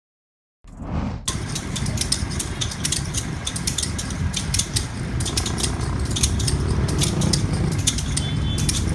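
Irregular mechanical clicking and rattling over a low rumble, starting after about half a second of silence and slowly growing louder.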